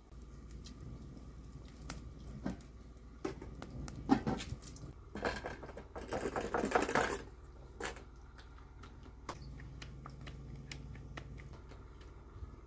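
Scattered light clicks and taps of hands and utensils working bread dough on a metal tray, with a noisy rustling burst lasting about two seconds near the middle.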